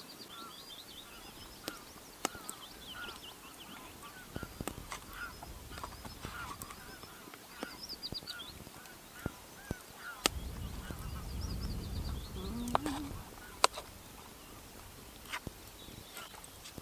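A flock of geese honking, with many short overlapping calls throughout, and a few sharp cracks or pops among them.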